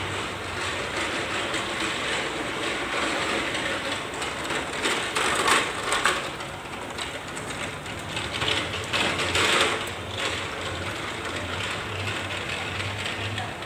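Metal clicking and rattling as a hand tool works the centre nut of the lower sprocket in a rotary tiller's roller-chain drive case. It is loudest in two spells, about five and about nine seconds in.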